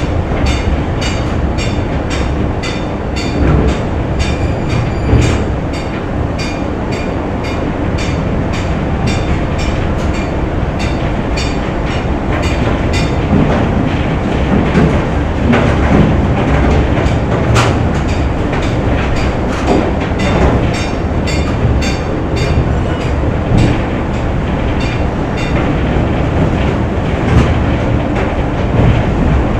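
Factory machinery running: a heavy, steady rumble with a fast, even clacking rhythm on top.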